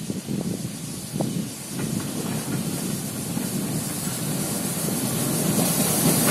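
Twin ALCO diesel locomotives chugging as they approach at speed, growing steadily louder. Near the end the hiss of the engines and wheels swells as the locomotives draw level.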